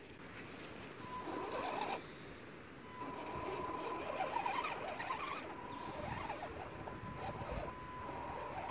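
Electric motor and gear drive of an RC scale crawler whining at a steady pitch as it crawls over lumpy dirt, with irregular rattling and scraping from the chassis and tyres. The whine starts about a second in and drops out briefly before coming back.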